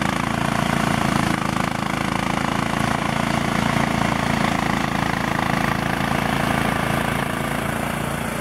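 ATV engine and its homemade front-mounted mower running steadily while cutting tall grass.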